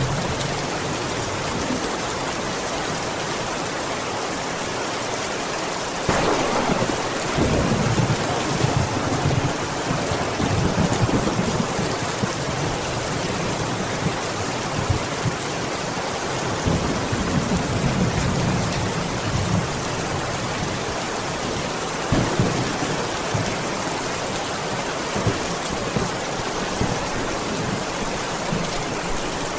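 Heavy rain falling steadily against a window. About six seconds in, a long roll of thunder starts suddenly and rumbles on for over ten seconds, with a few shorter rumbles later.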